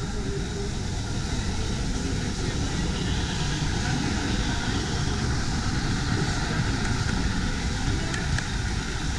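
Steady hubbub of a crowd with indistinct voices.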